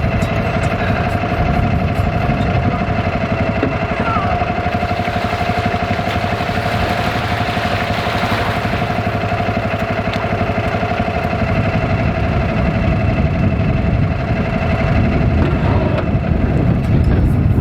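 An engine running steadily at a constant speed, with an unchanging pitch.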